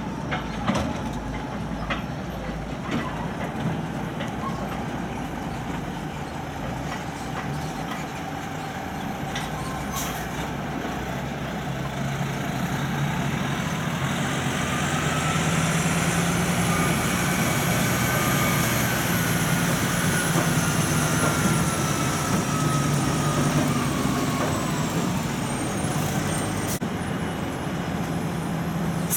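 Diesel engine of a heavy off-highway log truck running, growing louder about halfway through as the truck passes. A high whine rises and then falls over it.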